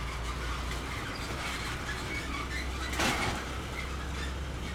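Diesel tractor-trailer hauling a shipping container rolling over a railway level crossing, its engine running with a steady low hum and the trailer rattling over the rails. A short loud rush of noise comes about three seconds in.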